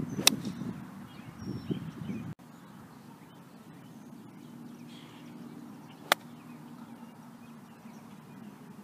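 Two golf shots, each a sharp click of the clubhead striking the ball: a 7-iron shot about a quarter of a second in, and a 50-yard pitch shot about six seconds in. A low rumbling noise lies under the first shot and a faint steady hum under the second.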